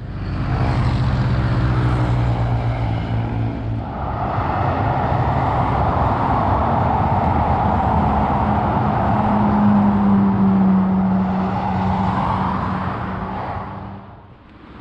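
Road traffic passing on a main road: a low engine hum in the first few seconds, then a steady rush of tyre noise from cars going by, with another engine tone in the middle, fading near the end.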